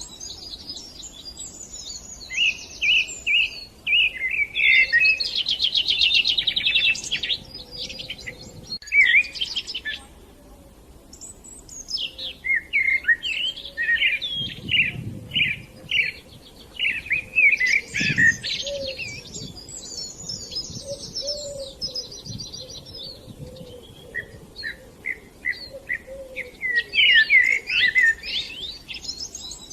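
Songbirds singing outdoors: quick runs of high chirps and rapid trills, phrase after phrase, with brief lulls between bursts.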